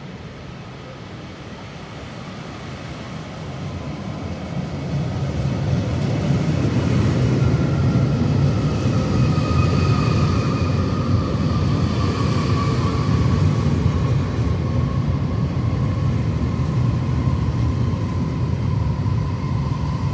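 JR Hokkaido Series 733-3000 electric train with Mitsubishi IGBT VVVF inverters pulling into a station: the running rumble grows louder over the first several seconds as it comes alongside, then holds steady. Over it sounds the inverter whine, a set of thin tones, the strongest of them slowly falling in pitch as the train slows.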